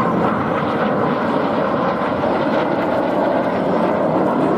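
BAE Hawk T1 jet trainers flying over in close formation: a steady rushing jet noise from their turbofan engines.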